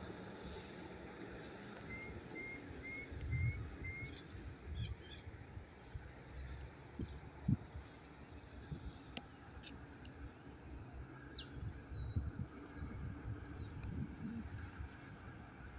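Insects calling in a steady high drone, with a bird giving five short chirps about two seconds in and a few other brief bird calls later. A low uneven rumble with occasional bumps runs underneath.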